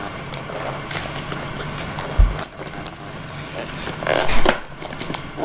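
Packing tape being picked at and torn off a small cardboard box by hand: irregular scratching and scraping, with a dull knock about two seconds in and a louder ripping burst around four seconds in.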